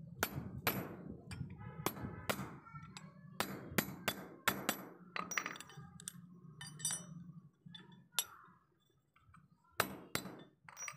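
Hammer striking a steel punch to drive the pivot rivet out of a pair of rusty pliers resting on a steel block. Sharp metallic taps with a brief ring come in an uneven string, about two a second for the first half. Later there are only a few spaced strikes.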